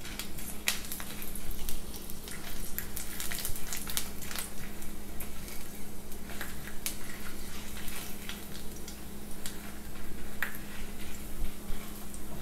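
Garlic cloves and dried red chillies sizzling in hot oil in a non-stick kadai, with many small crackles, as a wooden spatula stirs them around the pan.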